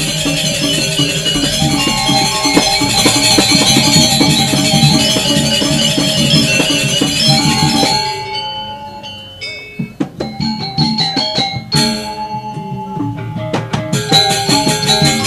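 Balinese gamelan playing a dense passage on bronze metallophones with a drum. About eight seconds in it breaks off abruptly, leaving a few scattered strikes, and the full ensemble comes back in near the end.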